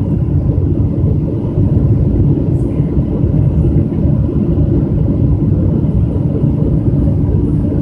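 Steady low rumble of a Boeing 777-200's engines and airflow, heard inside the passenger cabin as the airliner descends on approach.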